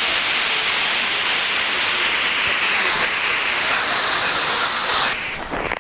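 Waterfall rushing: a steady hiss of falling water that cuts off abruptly about five seconds in.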